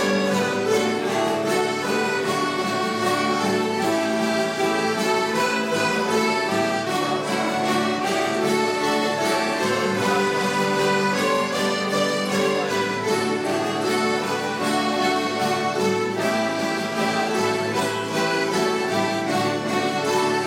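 Children's string orchestra of violins, mandolins and guitar playing an instrumental piece at an even loudness, with held notes.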